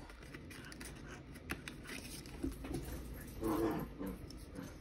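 Paper cards and a small envelope being handled: faint rustling and a few light ticks. A short voiced sound, a murmur or whine, comes about three and a half seconds in.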